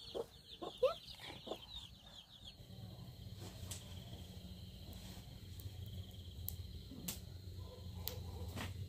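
Chickens clucking a few short calls, then a steady low hum with a steady high tone and a few scattered clicks.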